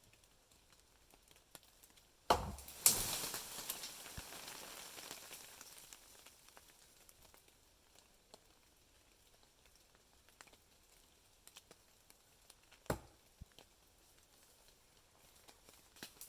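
A sharp knock, then a crashing rustle of branches and twigs that dies away over about three seconds, with one more knock about ten seconds later.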